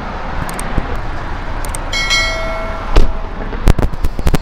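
A car door being opened and handled against a steady wash of traffic noise. About two seconds in, a single pitched tone sounds for about a second. A loud knock follows, then a few sharp knocks near the end.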